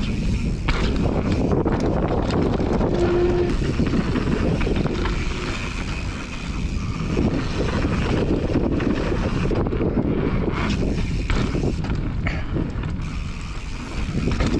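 Mountain bike riding fast down a dirt singletrack: tyres rumbling over packed dirt and the bike rattling over bumps, with wind buffeting the microphone.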